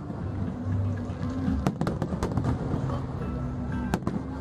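Fireworks bursting over music played for the show: a quick run of sharp cracks about a second and a half in, another single crack near the end, with a steady low rumble underneath.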